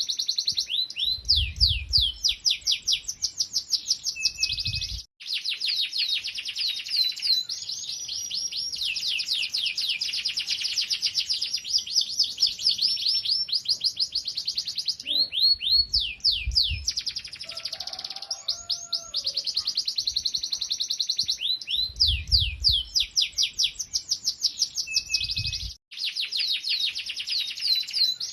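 Domestic canary singing a long, fast song of rapidly repeated sweeping notes and rolling trills, broken by two brief gaps. A low rumble sounds underneath at times.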